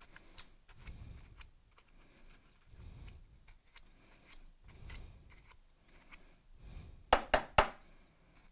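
Hands handling a hard plastic battery case on a workbench: soft rubbing and small clicks, then three sharp knocks in quick succession about a second before the end.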